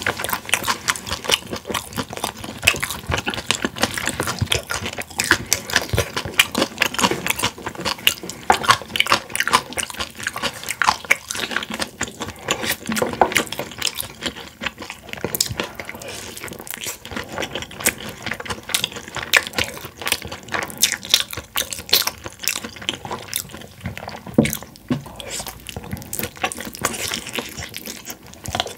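Close-miked crunching and chewing of crispy boneless fried chicken by two people eating, a dense run of crackling bites throughout.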